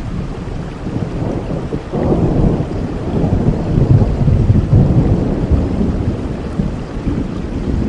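Rolling thunder rumbling deep and low over steady rain. The rumble swells about two seconds in and stays heavy.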